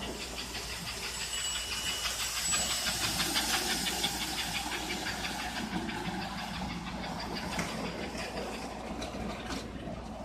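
American Flyer 312 S-gauge model steam locomotive running on the track, its motor and wheels making a steady mechanical rattle with a fast rhythmic hiss, loudest a few seconds in.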